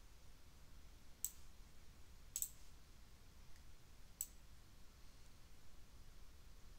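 Three faint computer mouse clicks, the middle one a quick double click, over quiet room hiss.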